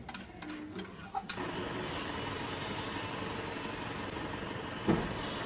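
A few light clicks of a spanner working on bolts, then a steady mechanical drone with one thump near the end.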